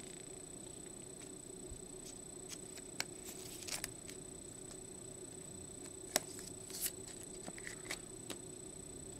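Baseball cards and rigid plastic card holders being handled on a table: scattered light clicks and short rustles, the sharpest click about six seconds in. A steady faint hum and a thin high whine run underneath.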